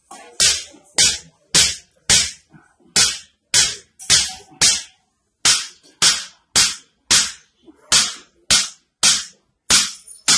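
A small hammer striking an object held against a person's back: sharp, loud cracks about twice a second, with a brief pause about halfway through.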